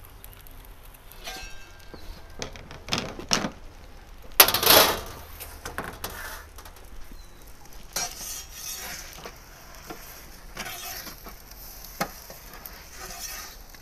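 A metal turning peel clicking, clinking and scraping against the stone floor of a pizza oven as a baking pizza is turned. One louder scrape comes about four and a half seconds in.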